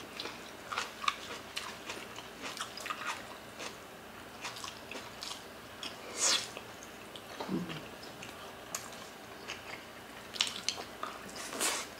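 Close-miked eating sounds of two people eating oxtail kare-kare and rice with their hands: chewing, lip smacks and small irregular mouth clicks.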